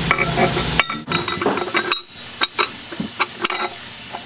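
Steel low/reverse pressure plate of a Chrysler 42RLE automatic transmission clinking and clicking against the case and clutch pack as it is set into place: a run of sharp metallic clinks, several with a short ring. A steady background hiss cuts off just under a second in.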